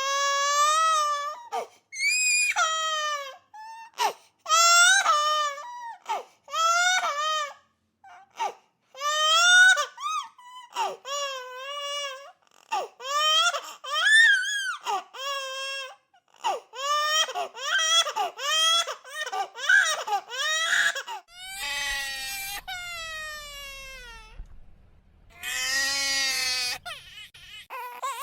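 High-pitched crying sound effect: a long run of wavering, sobbing wails, each about a second long with short breaks between them. Two longer, harsher cries come near the end.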